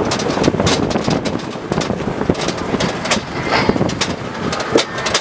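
Land Rover Defender driving over a rough, rocky dirt track: the running vehicle with frequent knocks and rattles from the jolting body, and wind buffeting the microphone.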